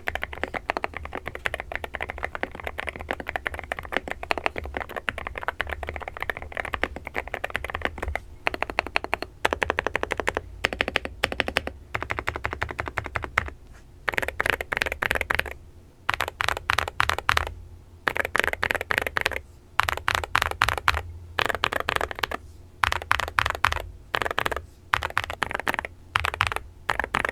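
Typing on the Akko 5098B mechanical keyboard with PBT Cherry-profile keycaps: a fast, steady clatter of keystrokes for about eight seconds, then bursts of typing a second or two long separated by short pauses.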